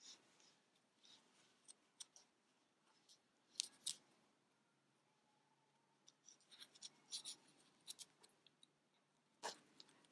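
Faint handling sounds of a crochet hook working yarn through single crochet stitches: scattered soft clicks and ticks, with a quick cluster of them about six to eight seconds in.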